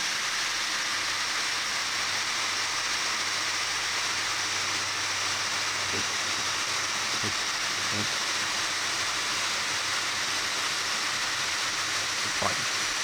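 Power drill running steadily, boring a large hole through a timber gate for a lock cylinder. It makes an even hiss with a few faint ticks.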